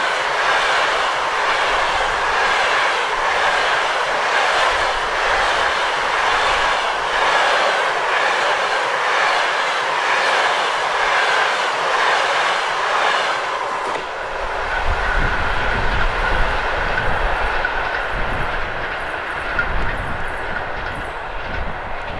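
Passenger coaches running past close by, their wheels clattering rhythmically over the rail joints. About fourteen seconds in the last coach goes by and the sound drops away, leaving a low, uneven rumble and a steady high hum that fade as the train recedes.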